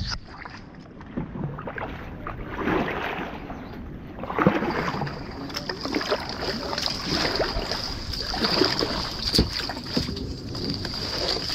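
Kayak paddle strokes dipping and swishing through the water, one every second or two, with a steady high-pitched whine running over them.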